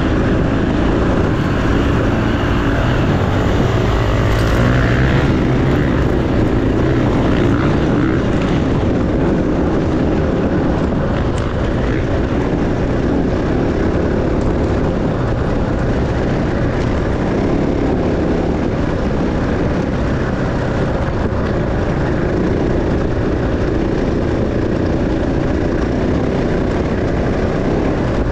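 Dirt bike engine running under load through the whole stretch, with heavy wind noise over the microphone.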